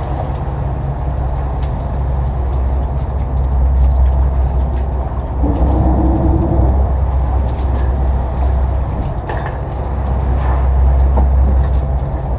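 Sport-fishing boat's engines running steadily under way, a deep continuous drone with the rush of water and air over it.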